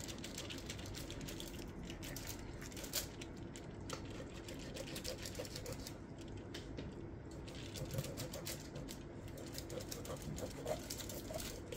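A knife cutting slits into a whole raw fish: a dense, irregular run of small clicks and ticks over a steady low hum.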